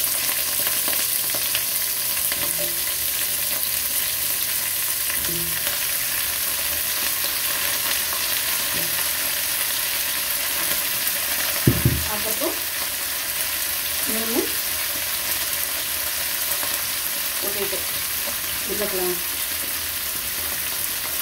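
Cut vegetables (eggplant, carrot, cucumber, potato) sizzling in hot oil in a non-stick pan, a steady hiss as more pieces go in. A sharp double knock sounds about 12 seconds in.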